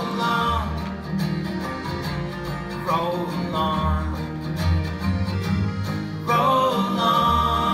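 Live folk band playing between sung lines: acoustic guitar and upright bass with drums, and a held melody line coming in twice.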